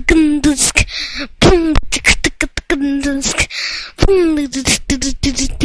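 Beatboxing: rapid vocal percussion of sharp clicks and short hissing cymbal-like bursts, mixed with sliding vocal tones that fall in pitch.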